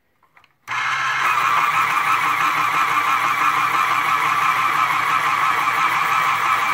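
Westcott 15511 heavy-duty electric pencil sharpener grinding a wooden pencil: after a few faint clicks as the pencil goes in, the motor and blade start abruptly about a second in and run with a loud, steady whirr.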